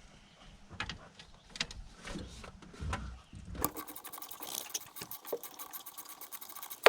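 A socket ratchet clicking rapidly and evenly as it backs out the 14 mm top bolt of an alternator. It follows a few scattered clicks and knocks of the socket being fitted onto the bolt.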